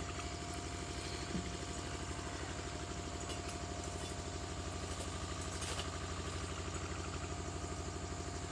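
An engine idling steadily, a low, evenly pulsing hum with no change in speed.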